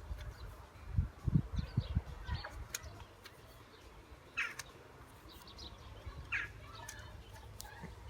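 A few short bird chirps over a low background rumble, with a cluster of low thumps from about one to two seconds in.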